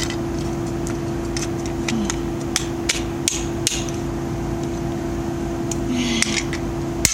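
Hammer tapping on a scrap metal part: a string of sharp, separate strikes, several in quick succession a few seconds in and the sharpest near the end, over a steady low hum.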